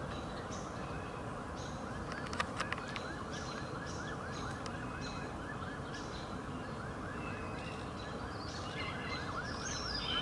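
Outdoor park ambience: a steady low rumble under a rapid, even train of short chirping notes, about five a second, with scattered higher bird calls that become busier near the end.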